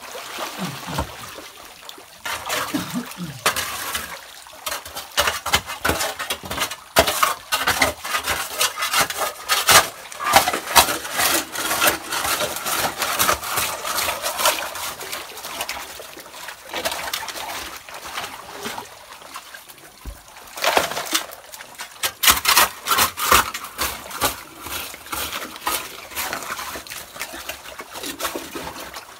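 A steel shovel digging into wet gravel and mud in shallow muddy water: repeated gritty scrapes and strikes of the blade on stones, with splashing and trickling water.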